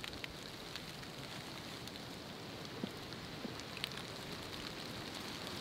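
Campfire coals crackling faintly beneath spit-roasting turkey halves: a steady soft hiss with a few sharp little pops.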